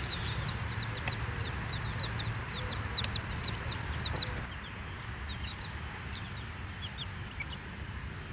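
Baby chicks peeping: a rapid scatter of short, high cheeps, busiest in the first half and thinning out after about four and a half seconds, over a low steady rumble.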